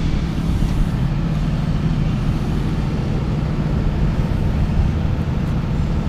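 Cummins 6.7-litre turbo diesel of a Freightliner rollback tow truck idling steadily.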